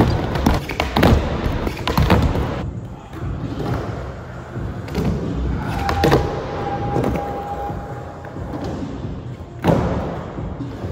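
Skateboard rolling over the park surface, its wheels a steady rumble, with several sharp clacks and thuds of the board hitting and landing: a cluster in the first two seconds or so and another near the end.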